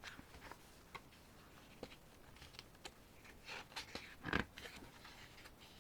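Faint rustling and small clicks of an album's paper pages being handled and turned, with one louder rustle about four seconds in.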